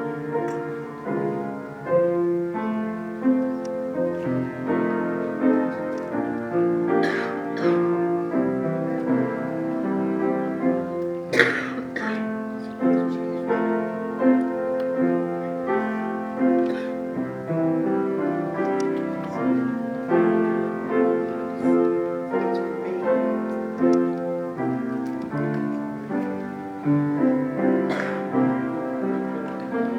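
Piano playing a slow piece of sustained notes and chords, with a few brief clicks or knocks over it.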